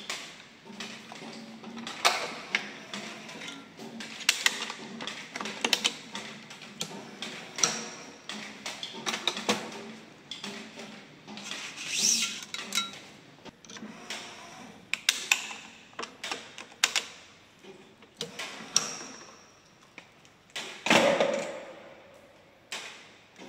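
Badminton racket being strung on a stringing machine: Gosen Ryzonic 65 string swishing as it is pulled through the frame, amid a run of sharp clicks and taps from the string, clamps and machine. A longer, louder swish comes near the end.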